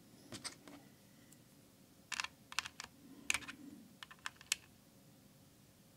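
Clicky blue mechanical keyboard switches being pressed, a series of faint sharp clicks in small groups, as the switches are tested after being lubricated with hand cream.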